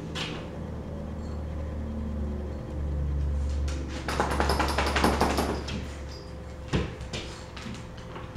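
Cats pouncing at a laser dot on a wall: a dense scrabbling rattle of claws and paws against wall and hardwood floor for a couple of seconds around the middle, then one sharp thump of a landing and a few light taps.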